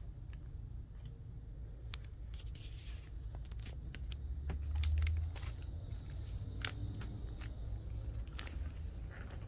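Comic books in plastic sleeves being handled: scattered crinkles of the plastic and light clicks and taps as the books are moved on a glass desk, with a brief low rumble of handling noise near the middle.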